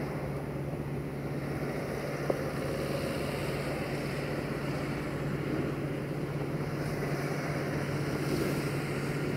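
Diesel-electric locomotive, a CFR Class 65 re-engined with a GM/EMD power unit, running steadily as it approaches slowly at the head of a passenger train, with a steady low drone. A short click about two seconds in.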